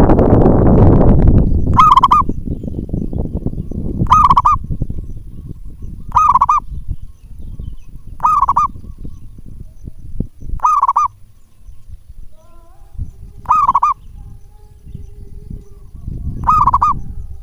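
Zebra dove (perkutut) cooing its short call, repeated seven times at roughly two-second intervals. A loud low rumble fills the first second and a half.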